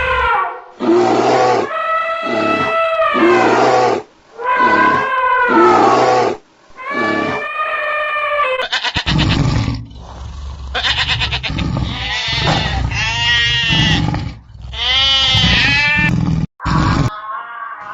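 A string of animal calls. The first half is a series of long, wavering bleat-like calls about a second each. After about nine seconds they give way to different calls with a rapid pulsing and rising, arching cries.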